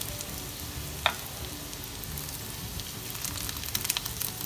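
Cheese-filled bread rolls shallow-frying in hot oil in a nonstick pan: a steady sizzle with crackles and pops, denser near the end, and a single sharp click about a second in.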